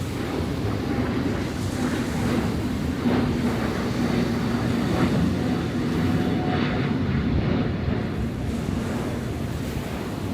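Heavy post-typhoon surf washing and breaking on the shore, with the steady low drone of a passing engine over it that swells in the middle and fades near the end.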